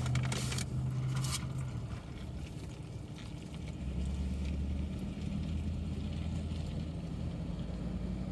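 Steady low hum of a car engine idling, heard from inside the cabin, with a brief rustle in the first second and a half.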